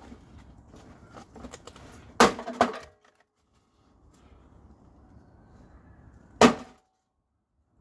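Blows smashing a wrecked microwave oven: a loud crash about two seconds in with a second, lighter hit right after it, then another single crash near the end.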